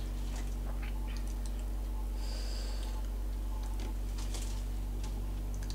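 Faint scattered clicks and soft wet sounds of eating, a fork picking at fish and chewing, over a steady low hum.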